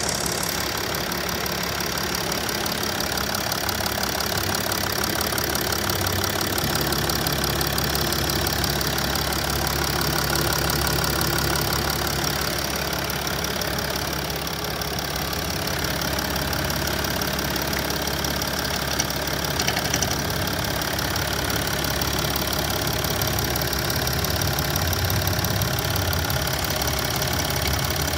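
Mercedes OM642 3.0-litre V6 turbodiesel idling steadily while hot, heard up close at the engine during a crankcase blow-by oil-cap test.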